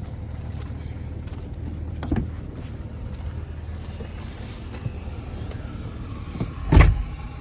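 Jeep driving, a steady low engine and road rumble, with a knock about two seconds in and a heavier thump near the end.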